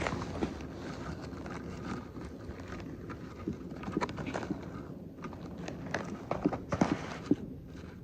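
Irregular light knocks and clicks over a low steady hiss, with a cluster of sharper knocks about six to seven seconds in.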